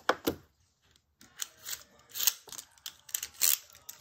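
Hard plastic toy parts being handled off-camera: an irregular run of sharp clicks and clacks, with a brief pause about a second in.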